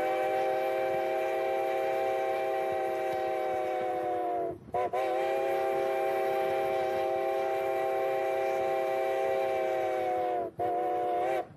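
Steam locomotive whistle sounding the grade-crossing signal as the train approaches a crossing. Two long blasts of about five seconds each, then a short one about ten seconds in, with the final long blast beginning right at the end. Each blast sags slightly in pitch as it cuts off.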